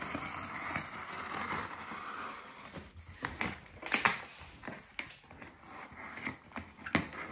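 A knife slicing through packing tape on a cardboard shipping box: a scratchy cut for the first two seconds or so, then scattered clicks and crackles of tape and cardboard being worked open.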